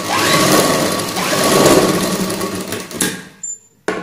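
Citizen Udyog sewing machine stitching a blouse seam at speed, running steadily with a low hum. It stops about three seconds in, then gives a couple of short runs near the end.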